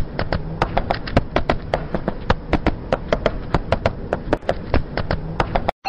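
A rapid, irregular series of sharp cracks and pops, several a second, over a low rumble, cutting off suddenly near the end.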